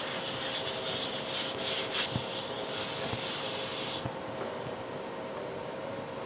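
Folded paper towel wiping oil across a nonstick pan: a scratchy rubbing in uneven strokes that stops about four seconds in.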